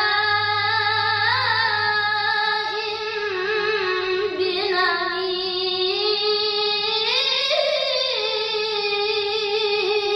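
A boy's high voice chanting Quran recitation in the melodic tilawah style, holding one long ornamented phrase with a rise in pitch about seven seconds in.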